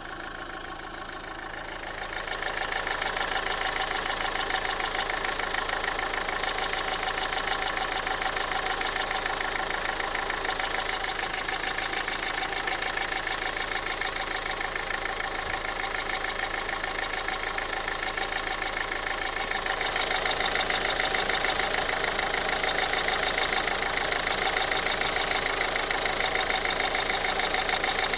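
1.5 dCi four-cylinder turbodiesel engine running at idle with a steady, fast clatter, filmed for an extraneous noise the owner is chasing. The sound grows louder about two seconds in, and louder and brighter again about twenty seconds in.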